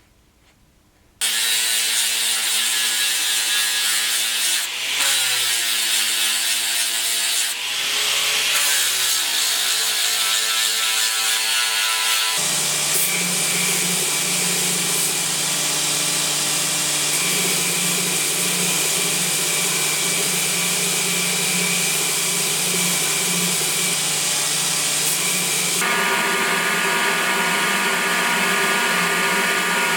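An electric power tool's motor starts up about a second in and runs steadily. Its pitch sags and recovers twice as it is loaded, then the sound turns harsher and noisier about halfway through as the work goes on.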